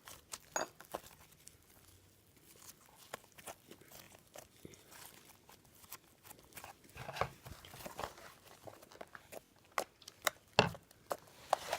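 Homemade white craft-glue slime, still a little sticky, being mixed and worked by hand: a string of soft, sticky clicks and crackles, with a sharper click about ten and a half seconds in.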